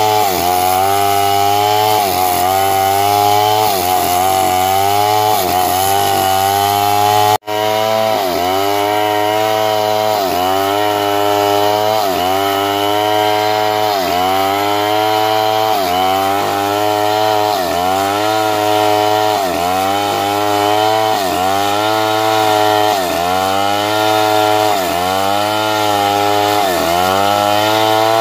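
Stihl two-stroke chainsaw at full throttle cutting through a log. The engine note sags and recovers about once a second as the chain bites into the wood, with a momentary break about seven seconds in.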